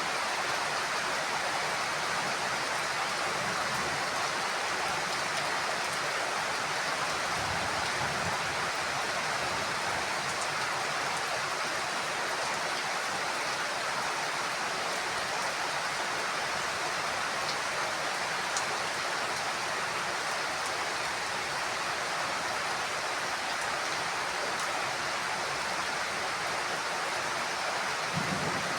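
Heavy rain falling steadily, a dense even hiss with a few faint scattered drips.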